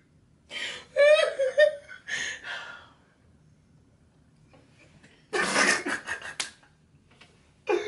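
A man and a woman laughing hard in two bouts, with high rising squeals in the first and a breathy burst in the second, a couple of seconds of quiet between them.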